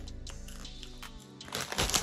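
Quiet background music with steady held notes. About a second and a half in, a brief crinkling of a plastic snack bag starts over it.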